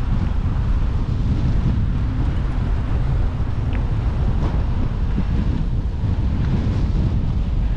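Steady, loud wind rumble buffeting the microphone, with a couple of faint ticks in the middle.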